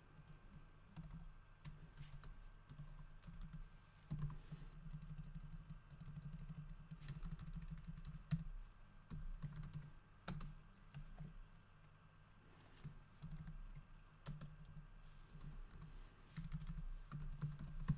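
Typing on a computer keyboard: irregular bursts of keystrokes separated by short pauses, with a quieter stretch about two-thirds of the way in.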